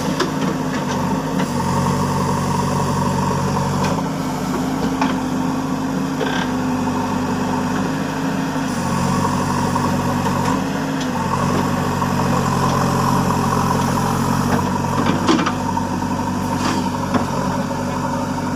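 JCB backhoe loader's diesel engine running, its pitch stepping down and back up every few seconds as the machine works, with a few short knocks in the second half.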